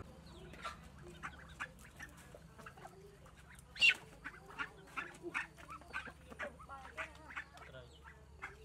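Backyard chickens and ducks calling: a run of many short clucks and calls, with one louder call about four seconds in.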